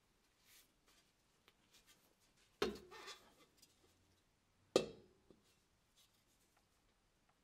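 Rusted steel shell of an Austrian M17 helmet knocking twice against a hard surface as it is handled and turned over: two sharp knocks about two seconds apart, each with a short ringing decay, among faint handling rustles and clicks.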